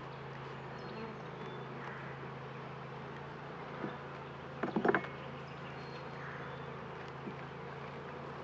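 Honeybees buzzing steadily around an open Langstroth hive, a colony the beekeeper describes as very calm. A brief louder sound comes about five seconds in.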